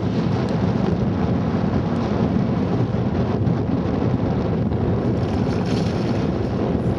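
Steady wind noise buffeting the microphone, with wind and water around a small boat.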